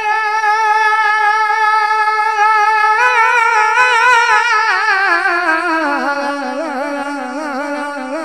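A naat singer's voice holding one long unaccompanied note. After about three seconds it breaks into a wide, wavering ornament and slides down to a lower note, which it keeps shaking on to the end.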